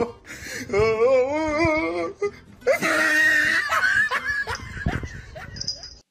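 A person laughing in high, wavering peals, turning breathy and wheezy about three seconds in. The sound cuts off suddenly near the end.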